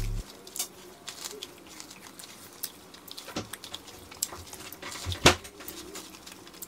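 Corn on the cob being bitten and chewed through novelty false teeth: scattered soft crunches, smacks and clicks from the mouth, with one sharper click a little after five seconds in.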